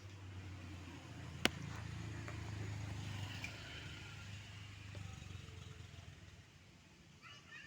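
A motor vehicle passing, a low rumble that swells and then fades, with one sharp click about a second and a half in.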